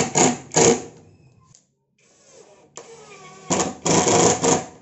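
Cordless power driver running in short bursts, driving screws into the cabinet's 18 mm blockboard side panel: three bursts in the first second, a pause, then two more about three and a half seconds in.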